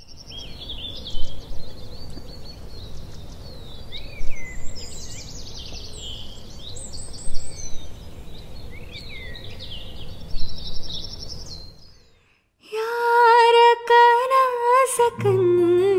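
Birds chirping and calling over a steady low outdoor rumble. After a short break, a woman begins singing a long, wavering held note, and an acoustic guitar comes in beneath her voice near the end.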